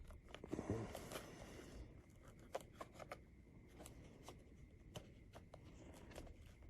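Faint handling of a small sealed cardboard pack being opened: a soft rustle of cardboard in the first couple of seconds, then scattered light clicks and taps.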